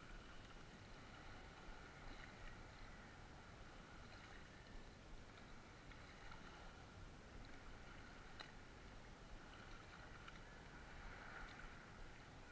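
Faint water sounds of a wooden paddle stroking beside a small outrigger canoe, with a single light click a little past the middle.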